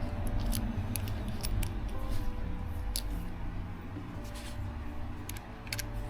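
Scattered small, sharp metallic clicks and taps, irregularly spaced, from the parts of a Shimano Stradic FJ spinning reel being handled and fitted during reassembly.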